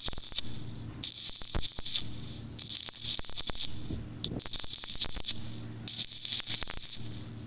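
Stick (SMAW) welding arc crackling and sputtering on steel C channel. The arc breaks off briefly every second or two and is restruck as the electrode is worked in and out of the puddle. A steady low hum runs underneath.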